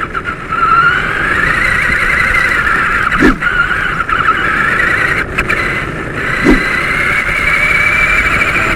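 RC car's electric motor whining as it drives, the pitch rising and falling with the throttle. Two short knocks, about three seconds in and again about six and a half seconds in.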